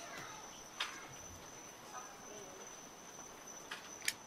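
Crickets trilling steadily at one high pitch, with two sharp clicks, about a second in and near the end, from a lighter being sparked to light a cigar.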